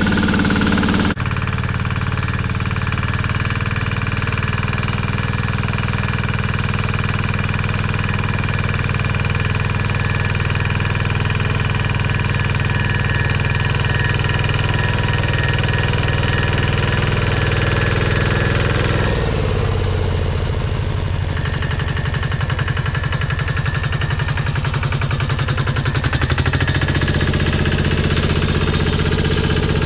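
Pasquali walking tractor's engine running steadily under load while its rotary tiller churns the soil. The engine note changes about two-thirds of the way through and grows louder near the end.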